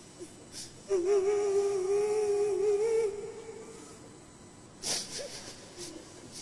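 A male Quran reciter holds one long, slightly wavering melodic note on a drawn-out syllable for about two seconds. A short breathy sound, likely an intake of breath, follows a couple of seconds later.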